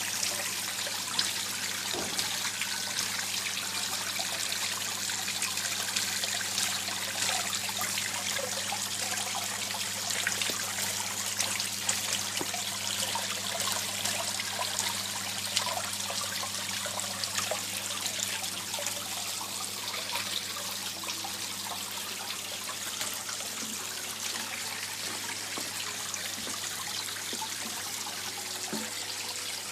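Small garden pond waterfall trickling and splashing steadily into the pond water, with a steady low hum underneath.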